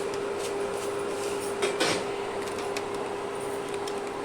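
A few light knocks and a scrape of kitchen utensils against a pot, the loudest clatter about two seconds in, heard as tea leaves are added to a kadha. A steady hum runs underneath.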